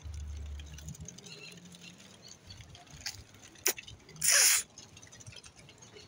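Handling and wind noise on a phone's microphone: a low rumble for the first second, scattered light clicks, and a short, loud hissing rustle a little after four seconds in.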